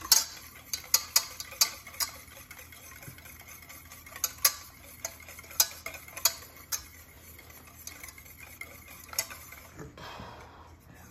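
Wire whisk beating egg yolks in a stainless steel saucepan, the wires clicking irregularly against the metal sides. The clicks come quickly for the first couple of seconds, then thin out to scattered clicks.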